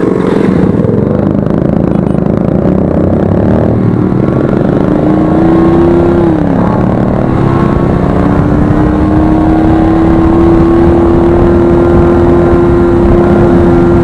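Motorcycle engine pulling away and then cruising, heard from the bike itself with road and wind noise. The engine note holds steady, falls once about six seconds in, then settles into a long steady note.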